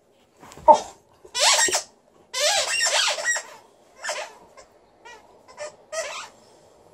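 Rubber squeaky ball squeaking as an Alaskan Malamute chews it: about six squeaks of varying length, the longest near the middle.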